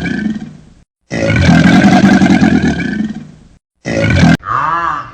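A large animal's deep, rough roar, played twice in a row as the same call, then a brief burst that cuts off suddenly. A honking bird call begins near the end.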